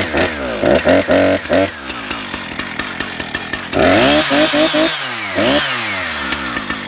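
Husqvarna 455 Rancher chainsaw's two-stroke engine running and being revved up and down in quick blips, one cluster about a second in and another around four to five seconds in, idling between.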